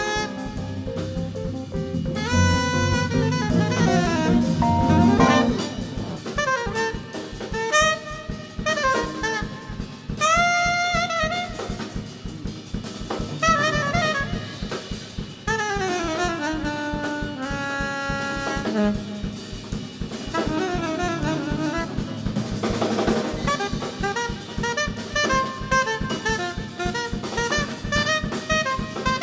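Live jazz band playing: a soprano saxophone plays fast melodic phrases that slide up and down in pitch over electric bass, keyboards and a drum kit with cymbals.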